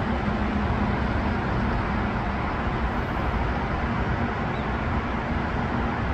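Steady road traffic noise from the streets and highway below, an even rush of passing cars with a steady low hum underneath.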